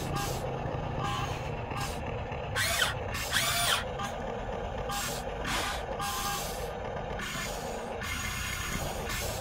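Huina 1/14-scale RC excavator's electric motors and gearboxes whirring in short stop-start bursts as the arm and tool move, with a few rising-then-falling whines near the middle.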